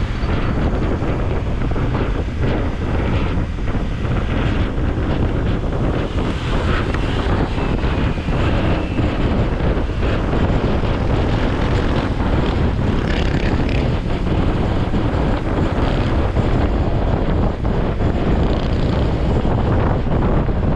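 Steady wind rushing over the camera microphone of a moving Honda ADV 160 scooter riding at about 30 to 50 km/h, with the scooter's engine and road noise underneath.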